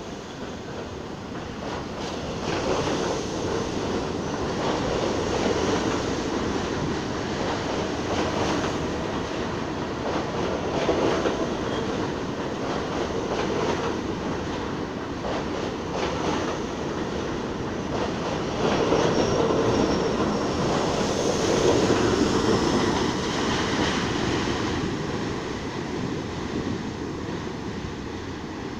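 An R42 subway train running through an elevated station without stopping: a steady rumble with the clickety-clack of wheels over rail joints, building over the first few seconds, loudest as the cars pass, then fading as it moves away.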